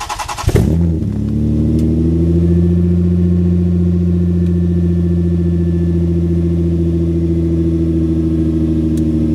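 Toyota Solara engine cranked by the starter and catching about half a second in with a brief flare of revs, then idling steadily. It is loud and unmuffled: the muffler is off and the exhaust blows straight out of the open pipe flange.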